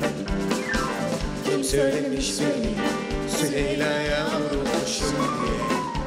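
Live band music from a violin section, piano and drum kit, with a steady beat and a few sliding notes.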